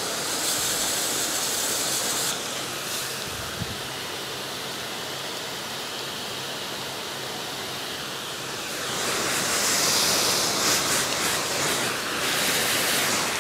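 A jet of water from a spray nozzle hissing as it washes down an orchid plant and its pot. It is steady, and louder and brighter about half a second in and again from about nine seconds in.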